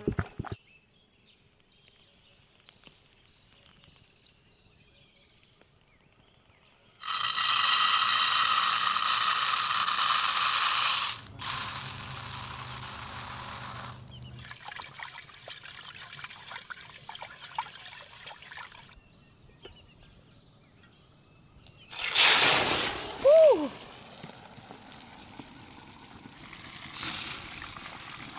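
Liquid being poured in separate stretches. The longest and loudest pour starts about seven seconds in and lasts about four seconds before going on more softly; a shorter pour comes near the end.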